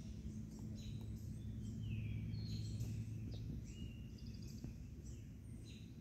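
Small birds chirping and calling at intervals, with a quick trill about four seconds in, over a steady low hum.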